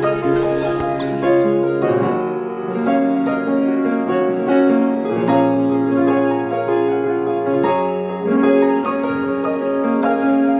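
Background music: piano playing slow, sustained chords that change every couple of seconds.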